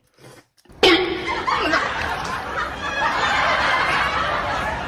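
Laughter from many people, like a canned laugh track. It starts suddenly about a second in and carries on at an even level for about four seconds.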